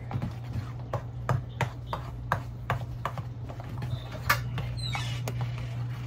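A utensil knocking and scraping against a mixing bowl while a batter is stirred by hand, in irregular clinks about twice a second with one louder knock and a short squeak about four seconds in. A steady low hum runs underneath.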